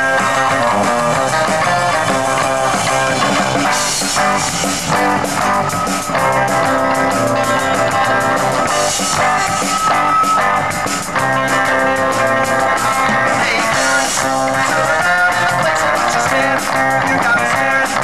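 Live rock band playing: electric guitars over a drum kit.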